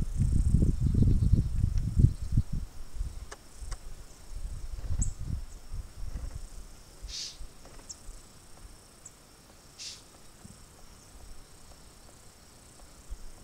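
Insects droning steadily in a high pitch, with two short, louder buzzes in the middle. Loud, irregular low rumbling on the microphone fills the first few seconds, then fades.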